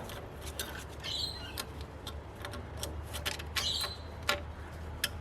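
Light scattered clicks and taps on metal, with two short squeaky rubbing sounds about a second in and again near the end, as the rim of a Toyota Hilux rear axle housing's seal bore is cleaned.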